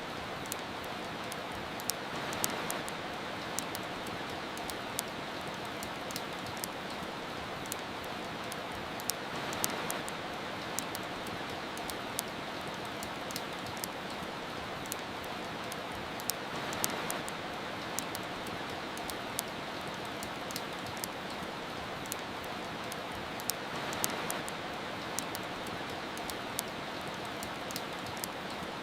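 Steady rain hiss that swells briefly about every seven seconds, mixed with the frequent sharp pops and crackles of a wood fire burning in a fireplace.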